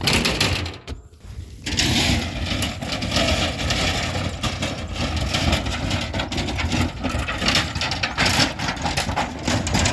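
A farm truck's engine running steadily after a brief lull about a second in.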